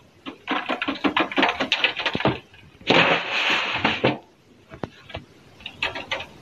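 Mealworm substrate, with larvae and pupae, being sifted through a stacked mesh sieve: a couple of seconds of rapid rattling clicks, then about a second of rushing, sifting noise, then a few scattered taps.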